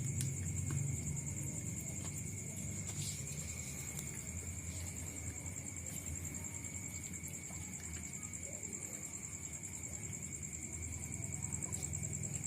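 Steady, high-pitched insect chirring, finely pulsing without a break, over a low rumble.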